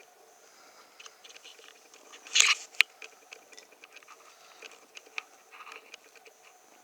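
Kitten scuffling at play: scattered soft scratches and clicks, with a louder scrabble about two and a half seconds in and a sharp click just after it.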